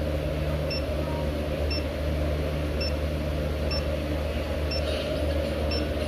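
Xiaomi Mi electric scooter beeping: short high-pitched beeps about once a second, over a steady low hum. It is the repeated warning beep of a scooter not yet activated in the Mi Home app.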